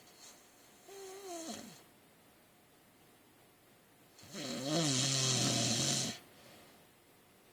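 A man snoring in his sleep: a short, quieter snore about a second in that falls in pitch at its end, then a long, loud, rasping snore of about two seconds.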